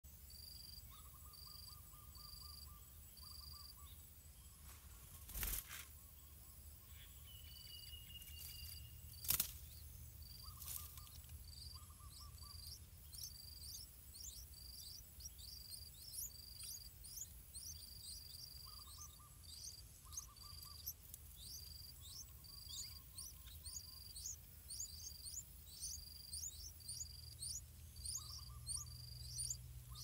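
Yellow-vented bulbul nestlings begging with faint, high-pitched chirps that grow quicker and busier after about ten seconds as a parent comes to feed them. Short, lower chirring bird calls sound now and then. Two sharp knocks come about five and nine seconds in, the second the loudest sound.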